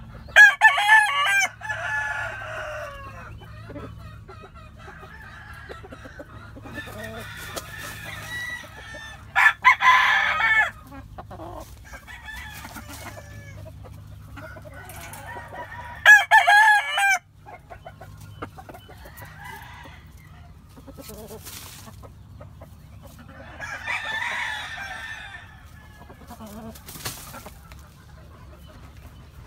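Gamefowl roosters crowing: three loud crows near the start, about ten seconds in and about sixteen seconds in, with a fainter call around twenty-four seconds. Softer clucking comes in between.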